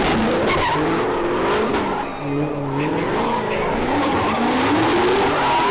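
Cars drifting in a takeover pit: tyres squealing and skidding over a dense roar of tyre noise, with engine pitch rising and falling as the drivers work the throttle.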